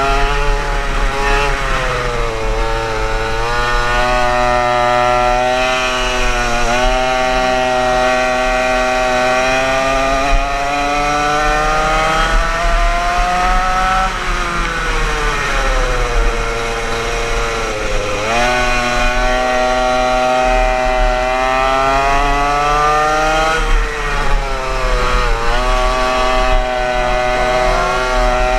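Yamaha KT100 single-cylinder two-stroke kart engine running hard through a lap, its high, buzzing pitch climbing steadily along the straights and dropping sharply as the kart slows for the corners, several times over.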